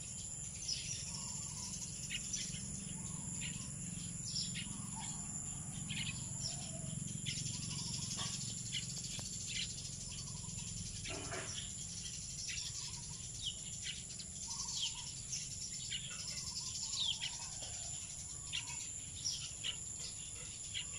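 Wild birds chirping in many short, quick falling calls over a steady high-pitched insect drone.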